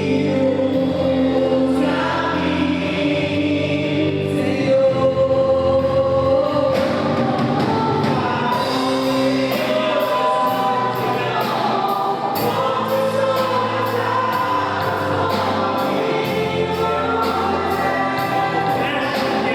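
Live gospel worship song: a group of voices singing together over a band's sustained chords and bass. About eight seconds in, a steady high beat joins.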